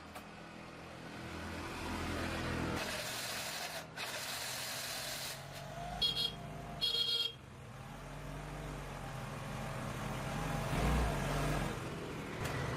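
A motor vehicle's engine running, its pitch rising and falling, with two short high-pitched beeps about six and seven seconds in.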